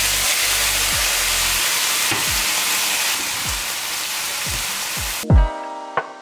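Loud sizzling as teriyaki sauce hits a hot frying pan of salmon, rice and vegetables and is stirred in, over background music with a steady soft beat. The sizzling cuts off abruptly at a thud about five seconds in, leaving quieter keyboard music with light ticks.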